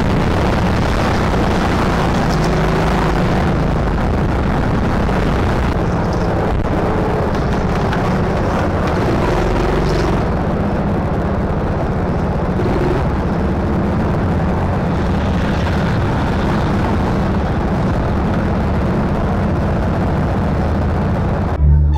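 Go-kart driving on an indoor track, heard from a camera mounted on the kart: a steady, loud rumble of motor, tyres and chassis vibration.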